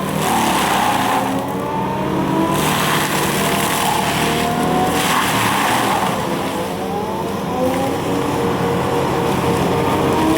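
Excavator engine and a Seppi Star FC hydraulic mulcher head running, with a whine that repeatedly rises and falls in pitch.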